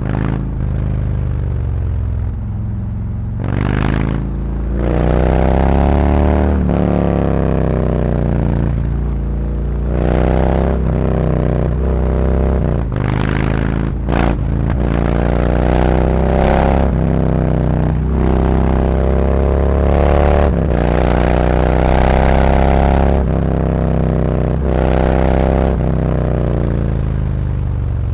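Harley-Davidson Road Glide Special's V-twin engine through SuperTrapp slip-on mufflers, accelerating hard through the gears. The revs climb and drop at each shift several times, over a deep low rumble, then ease off near the end.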